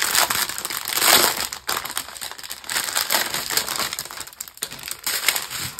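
Clear plastic packaging crinkling and rustling as a bundle of small plastic bags of diamond painting drills is handled and pulled from its outer packet, in a run of sharp crackles.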